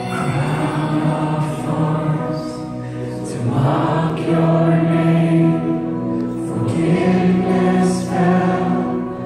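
Live church worship music: a band playing while voices sing long held notes.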